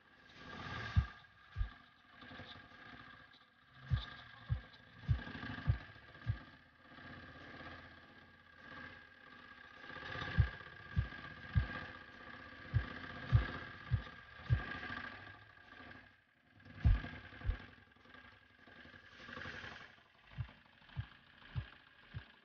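Changchai R170A single-cylinder diesel engine driving a water pump at a slow idle, with heavy low thumps about 0.6 s apart. The thumps come in uneven clusters with quieter gaps between them, over a steady hum.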